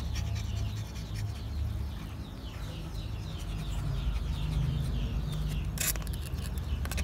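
Small birds twittering in quick, short falling chirps over a steady low hum, while a clear film lifted by paint remover is peeled off a painted motorcycle grab rail with soft rubbing and a sharp crackle near the end.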